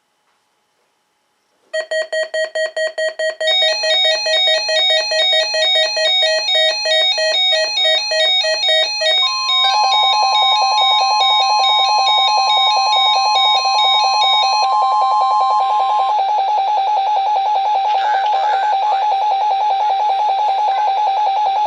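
Weather alert radio alarms for the weekly test. Pulsing electronic beeps start about two seconds in and turn into a continuous warbling beep. About nine seconds in, the steady 1050 Hz NOAA Weather Radio warning alarm tone joins for several seconds, while a lower pulsing alarm tone carries on to the end.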